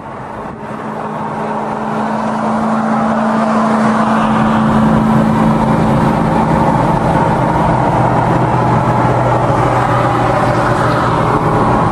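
Cars at motorway speed heard from inside a car: a steady engine drone with road and wind noise, growing louder over the first few seconds and then holding.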